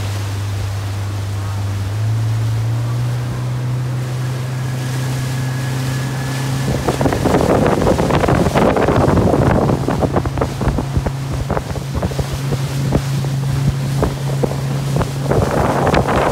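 Small inflatable motorboat under way: its engine hums steadily and rises in pitch a couple of seconds in as it speeds up. From about seven seconds in, water slaps and splashes against the hull and wind buffets the microphone over the engine.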